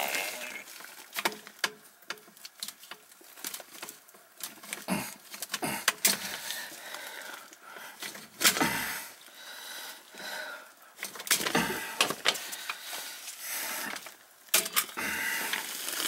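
Irregular handling noises: scattered clicks, knocks and rustles as cords and a small high-water alarm sensor are moved against the plastic pipes of a sump pit.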